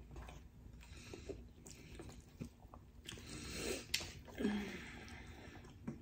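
Quiet chewing with soft clicks and scrapes of a plastic fork picking through orange chicken and rice in a plastic takeout tray. There are two sharper clicks about four seconds in.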